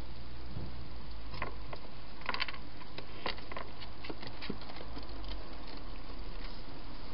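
A wild hedgehog eating and moving about inside a plastic feeding box: a scatter of irregular small clicks and crackles, busiest a couple of seconds in, over a low steady hum.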